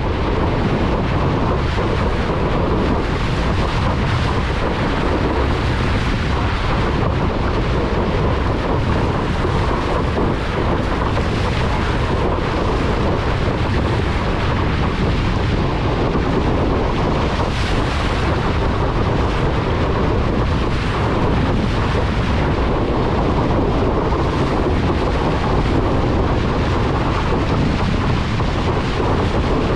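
Steady, loud wind buffeting on an action camera's microphone over the rush and splash of water from a windsurf board planing fast, close to the water.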